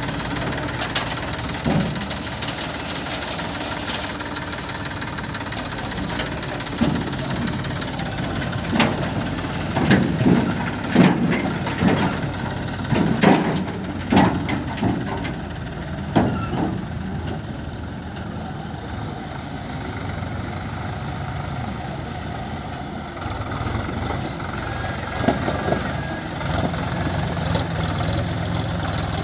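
Sonalika tractor's diesel engine running steadily, with a run of loud knocks and clatter about a third of the way in.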